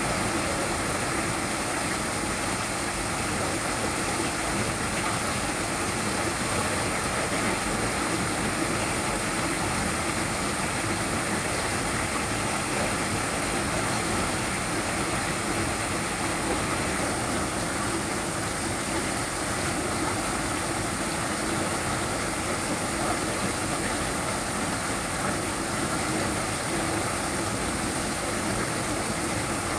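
Small waterfall, water splashing and rushing down steadily.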